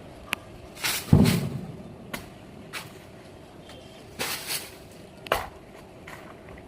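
Tree-cutting work: a few scattered sharp knocks and short swishes, with one heavy thud about a second in that dies away over about half a second.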